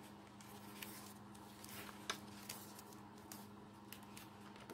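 Faint rustle and a few soft clicks of stiff white cardstock being bent by hand along its score line, over a steady low hum.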